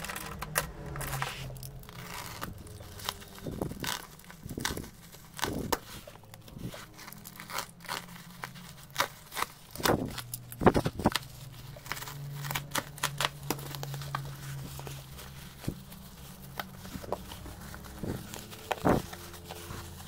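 Black plastic bubble-wrap packaging being slit with a utility knife and pulled open by hand: plastic crinkling and tearing, with many short, sharp cracks at irregular intervals.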